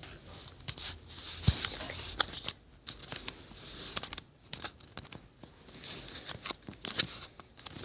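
Irregular clicks and short rustles, with no steady rhythm.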